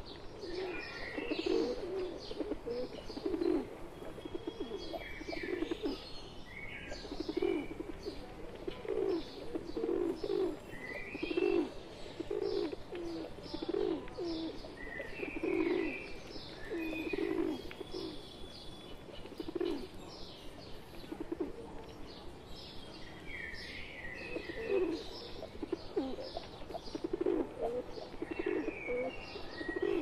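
A flock of rock pigeons cooing, low rolling coos overlapping about once a second, with small birds chirping at intervals above them.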